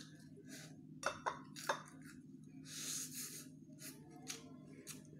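Tableware clinking during a meal: a few sharp clinks, the loudest a little under two seconds in, and a short rustle about three seconds in.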